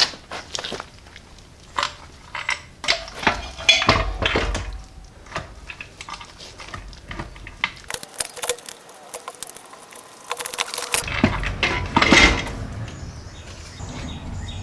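Irregular metallic clinks, clanks and knocks of hand tools and steel parts being handled during work on a car's transmission and clutch, with a denser run of clatter in the middle.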